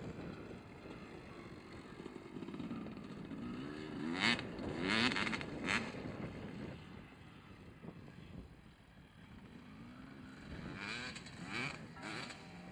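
Dirt bike engine revving up and down as the bike rides the motocross track, its pitch rising and falling in surges, loudest a few seconds in and again near the end.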